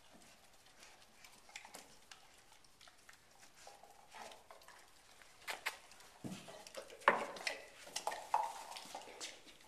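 Puppy mouthing, licking and nudging a rubber Kong chew toy on carpet: scattered small clicks and knocks, sparse at first, then more frequent and louder from about five seconds in, with the loudest knock about seven seconds in.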